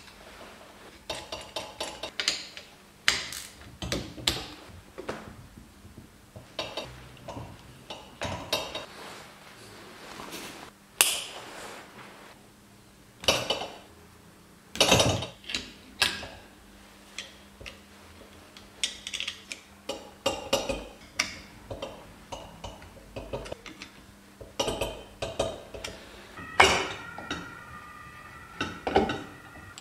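Irregular clicks, clinks and knocks of pliers and small metal parts being handled while wires are fitted to a Vespa engine's ignition stator plate and the flywheel is set over it. Near the end one metallic clink rings briefly.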